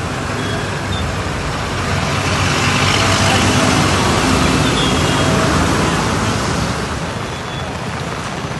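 A motor vehicle passing along a flooded street: its engine runs under a rushing wash of noise that grows louder to a peak around the middle and then fades away.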